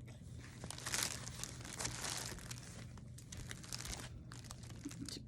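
Plastic packaging crinkling and rustling in irregular handfuls as doll clothes are handled, loudest about one to two seconds in, with small scattered clicks.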